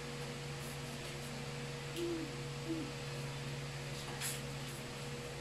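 A steady low electrical hum, with two short low hoot-like tones about two and three seconds in and a faint brief hiss a little after four seconds.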